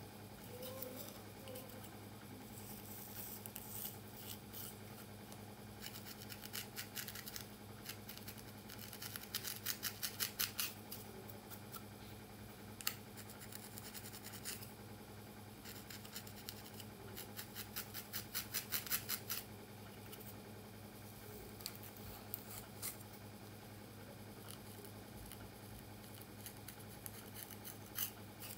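Close-up crackling and scratching of coarse hair as fingers and a wooden comb pull apart the strands of cornrow braids. There are two runs of quick crackles, one about a third of the way in and one past the middle, with single clicks between, over a faint low steady hum.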